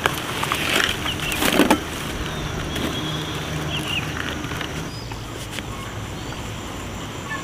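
Rustling and crackling as bunches of harvested green onions and a woven bamboo basket are handled, loudest about a second and a half in. A steady low hum runs underneath, with a few short high chirps.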